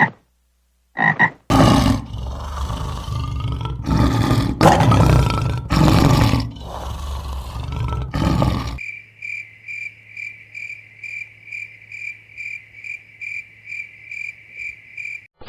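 A sequence of animal calls: three short croaks, then loud, rough roaring in several long pushes for about seven seconds, then a steady high chirp that pulses a little over twice a second.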